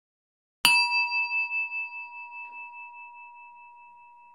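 Singing bowl struck once about half a second in, ringing on with a wavering, pulsing tone that slowly fades.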